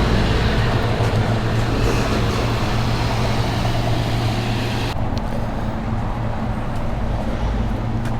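Steady street traffic noise with a constant low hum; the higher hiss drops away suddenly about five seconds in.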